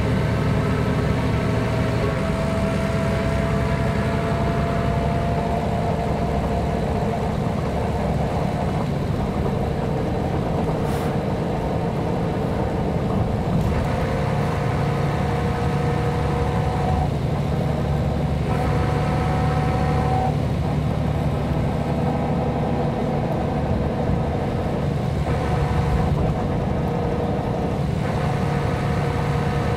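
Mercedes-Benz O 405 G articulated bus and its six-cylinder diesel engine running steadily, with a faint whine that slowly rises in pitch.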